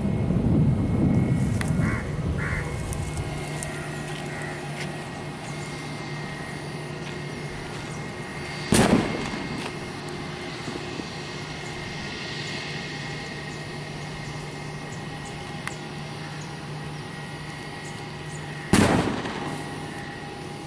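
Airbus A320's IAE V2500 turbofans running at low power on the runway, a steady hum with a high whine; a louder rumble dies down about two seconds in. Two loud sharp bangs about ten seconds apart cut through it, each with a short echo.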